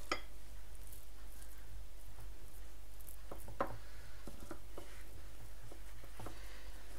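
Hands spreading raw minced meat inside a Lebanese flatbread: faint soft handling noises with a few light taps, mostly in the second half, over a steady low hum.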